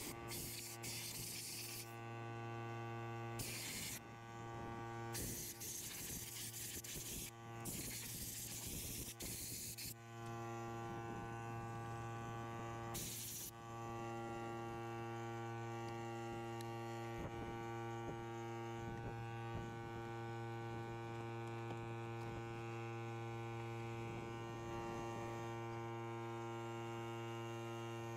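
Steam cleaner wand releasing short bursts of hissing steam several times in the first half, then once more briefly. A steady electric hum from the machine runs under it.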